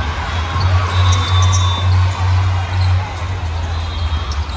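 Volleyball play in a large indoor hall: balls being struck and bouncing, with brief high squeaks, over a loud steady low hum.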